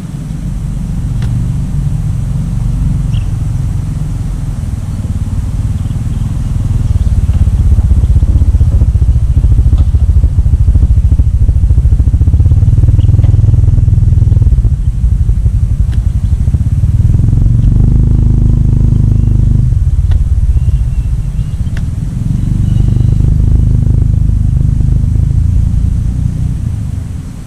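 A motor vehicle running, with a loud low rumble that swells and eases in waves and a few faint high chirps over it.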